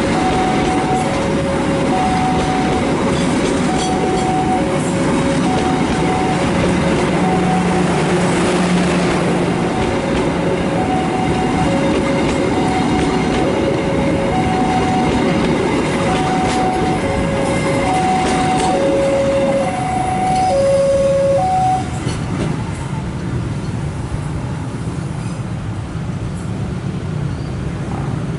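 A train running past on the rails with steady wheel-and-track noise, while a two-tone electronic warning signal alternates high and low about once a second. The warning tones stop about 22 seconds in and the train noise becomes quieter.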